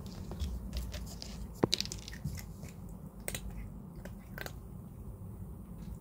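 Cat chewing dry kibble: a run of crisp crunches, the loudest not quite two seconds in, that stops after about four and a half seconds.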